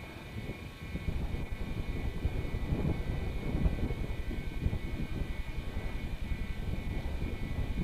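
Steady engine rumble mixed with wind noise, heard from inside a moving vehicle.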